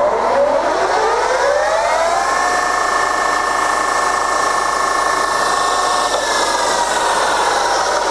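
Scott 6250B centre lathe's spindle and headstock gearbox running at its top speed of 1600 rpm. A mechanical whine rises over about two seconds, holds steady, then falls from about six seconds in as the spindle slows.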